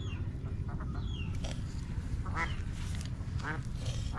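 Ducks quacking in a few short calls, about halfway through and again near the end, over small birds chirping and a steady low rumble.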